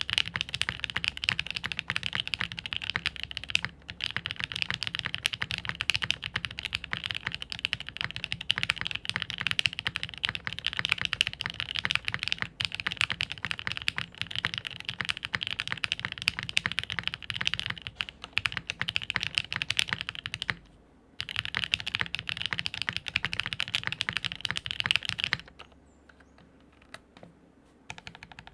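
Typing on a Jaguar custom mechanical keyboard with lubed and filmed NK Cream linear switches, GMK keycaps and a half-POM top-mount plate: fast, continuous keystrokes. There is a short break about 21 seconds in, and the typing stops about 25 seconds in.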